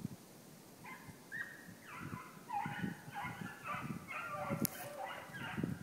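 Hunting hounds baying: a quick, overlapping string of calls starts about a second in and keeps going. There is a single sharp click about four and a half seconds in.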